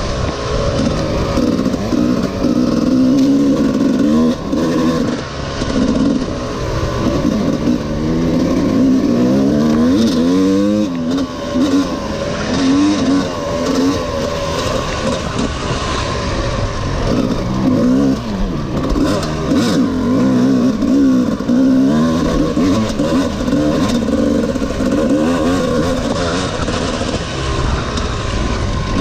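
Honda CR250R two-stroke single-cylinder engine revving up and falling back again and again, as on repeated throttle openings.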